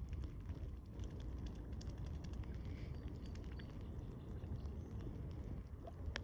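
Mute swans dabbling for floating birdseed: a rapid, irregular patter of small clicks and splashes as their bills work the water surface, over a low wind rumble on the microphone.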